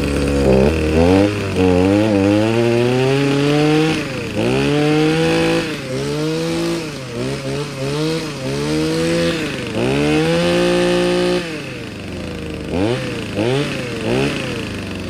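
Echo SRE2420 two-stroke brush cutter engine being revved by hand: the throttle is squeezed again and again, so the engine climbs from idle to high speed and drops back, is held high for about a second and a half around ten seconds in, then gets a few short blips near the end.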